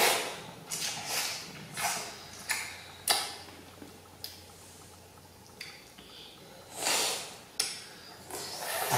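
Close-miked eating of juicy green orange: wet, crisp bites and mouth smacks at irregular intervals, with a quieter stretch in the middle.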